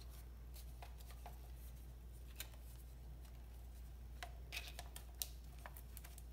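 Faint scattered clicks and taps of a picture frame being handled on a tile countertop, its back and tabs pressed by hand, over a low steady hum.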